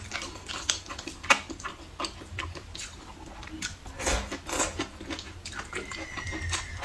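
Mouth sounds of eating glass noodles: wet chewing clicks and smacks, with noodles slurped in about four seconds in.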